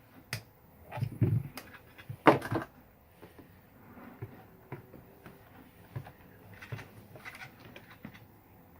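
Knocks, clicks and creaks of a pistol grip being pried and pulled off a Crosman DPMS SBR BB rifle, with two louder scrapes about one and two and a half seconds in and smaller clicks after.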